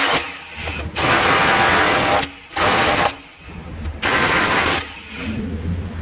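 Hitachi electric power tool run in repeated bursts of about a second, cutting away hardened concrete caked inside the steel drum of a concrete mixer, with a harsh mechanical rattle.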